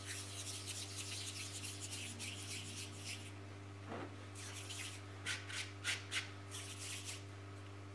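Bare hands rubbing together and working sugarpaste: a soft dry rustle for about three seconds, then a few short brisk rubs later on. A faint steady hum runs underneath.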